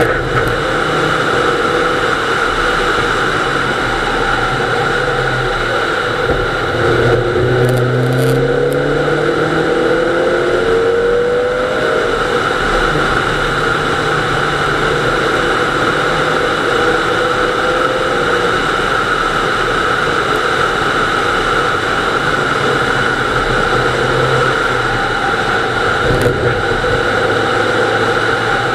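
Nissan Almera GTI rally car's 2.0-litre four-cylinder engine running hard at speed, heard from inside the cabin with loud road and tyre noise. The revs climb in a few short rising pulls about a third of the way in.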